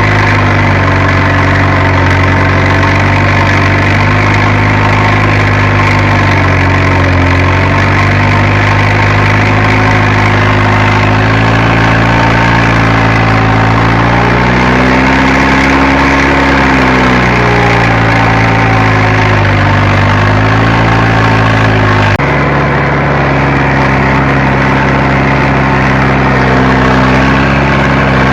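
Fiat Agri tractor's diesel engine running steadily while working a field. Its speed sags and recovers twice in the middle as the load changes. About 22 seconds in, the sound changes abruptly.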